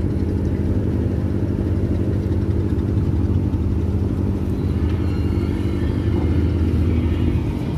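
Tugboat diesel engine running steadily under way, a deep even drone.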